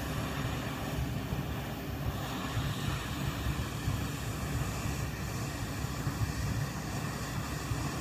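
Hot air rework station blowing steadily onto a circuit board, a constant rushing hiss, heating the solder joints to free a micro USB port.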